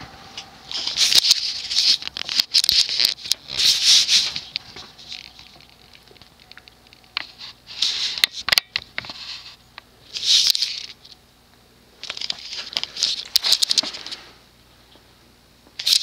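Irregular bursts of rustling and crackling close to the microphone, with sharp clicks, in clusters several seconds apart, while a switched-off ceiling fan coasts down quietly underneath.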